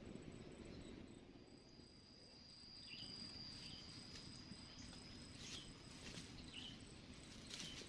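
Quiet countryside ambience. An insect, likely a cricket, holds a steady high-pitched trill for a few seconds, short high chirps come several times, and a low rumble runs underneath.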